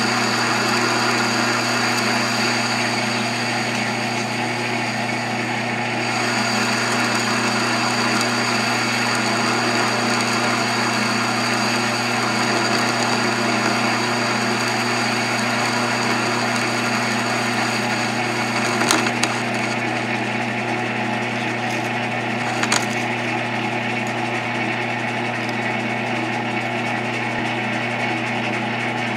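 South Bend 1307 lathe running slowed down with a steady hum and several steady tones from its drive while a carbide parting tool is hand-fed into the spinning work. Two short sharp clicks come about four seconds apart, two-thirds of the way through.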